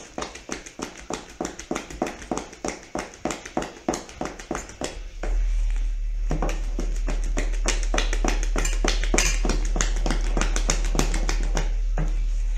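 Wooden spoon beating thick cake batter in a stainless steel bowl: a quick, even run of knocks and scrapes, about four a second. A steady low hum comes in about five seconds in.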